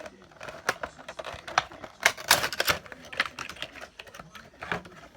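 Hands handling a Funko Pop's cardboard box and plastic packaging: irregular clicks, taps and rustles, busiest about two seconds in.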